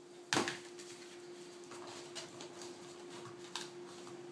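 Handling of a hand staple gun and a wooden stretcher-bar frame on a table: one sharp knock about a third of a second in, then quiet with a faint click near the end. A steady low hum runs underneath.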